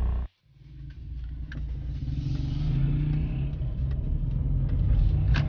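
Car engine and road rumble heard from inside the cabin while driving. The sound drops out sharply just after the start, then fades back in and grows louder.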